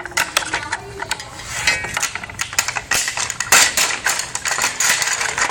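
Toy pots, pans and utensils clattering as a child plays at cooking: a rapid, irregular run of small clicks and knocks that grows busier about halfway through.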